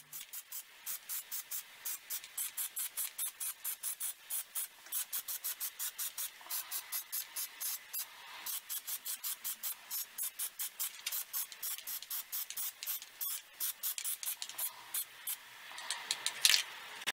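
Aerosol can of Plasti Dip rubber coating spraying in quick short bursts, about four a second, then one longer, louder spray near the end that stops abruptly.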